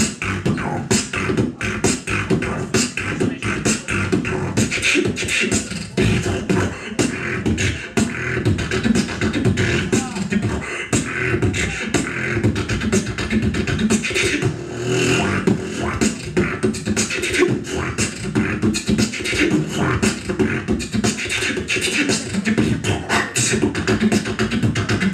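A beatboxer's vocal percussion: a fast, continuous pattern of mouth-made kick, snare and hi-hat clicks over a pulsing bass hum.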